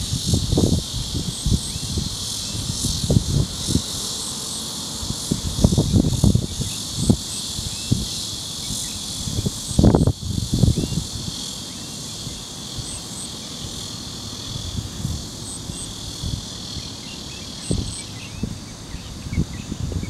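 Insects shrilling steadily in a high band, with a faint double chirp repeating every second or two. Irregular low rumbles of wind on the microphone come and go, the strongest about halfway through.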